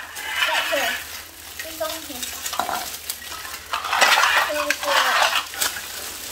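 Crackling rustle and light clicking of plastic toy parts and packaging being handled, loudest about four seconds in, with a few faint children's voices.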